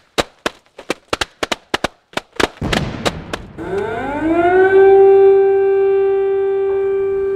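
A rapid, irregular string of about a dozen gunshots over the first two and a half seconds. Then an air-raid siren winds up, rising in pitch, and holds a steady wail over a low rumble.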